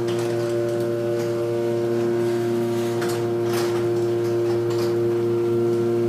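Sears Craftsman 139.53415SR chain-drive garage door opener running steadily, its motor humming as it raises the door.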